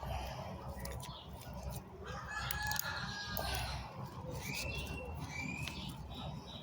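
Chickens clucking and a rooster crowing, with a held call about two seconds in and shorter calls near the end, over a steady low rumble.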